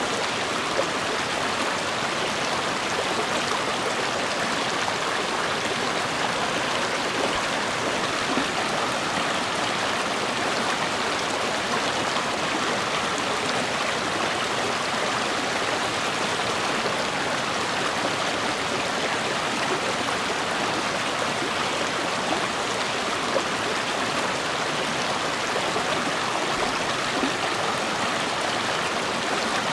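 A river or stream running steadily, a continuous even rush of flowing water.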